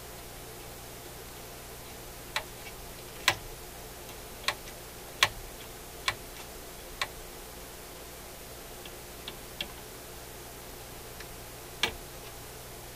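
Dual 1228 turntable's changer mechanism being turned by hand: a series of sharp, irregularly spaced clicks as its levers and pins come into contact, the loudest about three and five seconds in.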